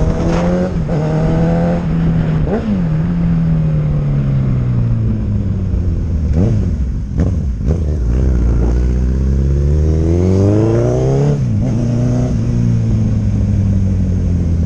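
Honda CB1000R's inline-four through an aftermarket sport exhaust, its note dropping steadily as the bike slows, with a few short cracks about six to seven seconds in. It then revs up hard, drops sharply at a gear change about eleven seconds in, and climbs again.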